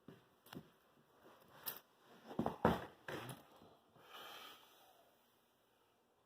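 Faint clicks and rustling of small objects being handled and moved about, loudest about two and a half to three seconds in, with a softer scrape a little later.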